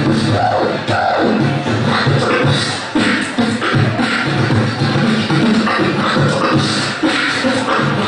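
Beatboxing into a handheld microphone, amplified: a steady rhythm of deep bass pulses with sharp clicks and hissing hi-hat sounds over them.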